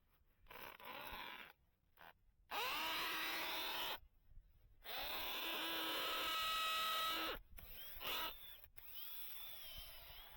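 Power drill run in three bursts of one to two and a half seconds, its motor whine rising at the start of each burst as it spins up.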